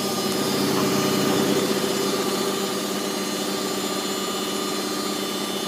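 Candy GO DF800 front-loading washing machine spinning its drum: a steady, even machine hum with several held tones.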